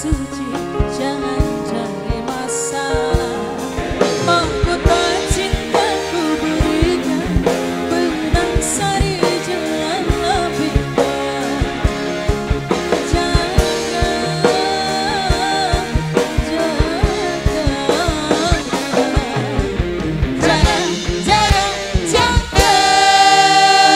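Live dangdut band playing, with a woman singing into a microphone over drums, keyboard and guitars.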